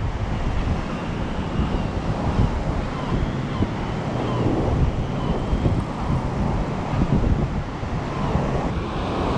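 Wind buffeting the microphone over the steady wash of sea waves.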